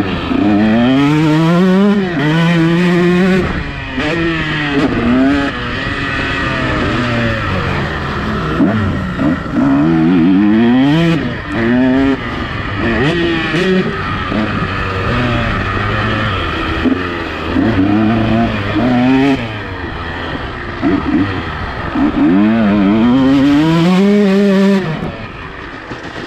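KTM two-stroke motocross bike engine, heard from the rider's helmet camera, revving hard and dropping back over and over as the throttle is opened and closed and the gears change, with a steady rush of noise under it.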